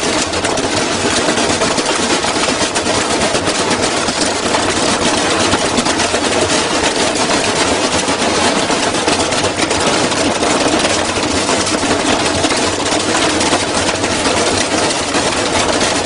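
Front-loading washing machine spinning its drum at high speed while violently unbalanced, the cabinet shaking itself apart: a loud, continuous clatter of rapid knocks and rattling metal panels that never lets up.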